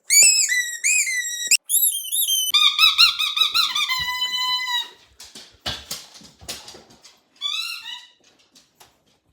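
Squeaky dog toy squeaking in a run of high, warbling squeaks for about five seconds, followed by a few scattered knocks and one more short squeak near the end.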